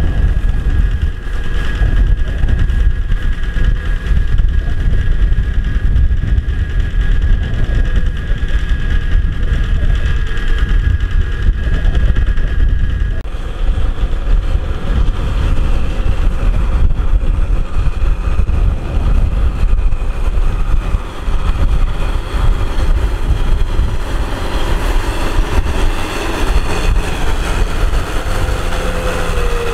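Kubota M6040SU tractor's four-cylinder diesel engine running steadily under load as it drives a puddling rotavator through flooded paddy mud. A thin, steady high whine sits over the engine's rumble until about halfway through, when the sound changes.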